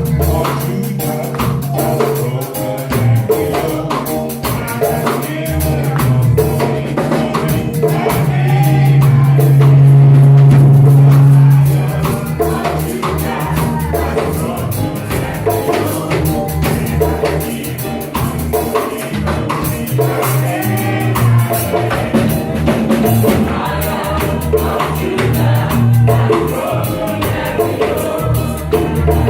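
Live gospel praise music with singing, drum kit and tambourine, a strong bass line with a loud held low note from about eight to twelve seconds in.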